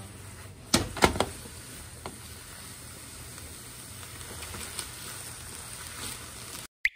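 Pork, green peppers and boiled somen noodles sizzling in a frying pan as they are stir-fried, with three sharp knocks of the utensils against the pan about a second in and a few lighter clicks later. A short bright ring right at the end.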